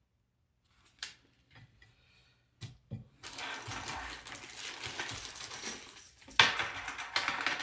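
Small hardware being handled on a work surface: a few light clicks, then several seconds of clinking and rattling, with one sharp, loud knock near the end.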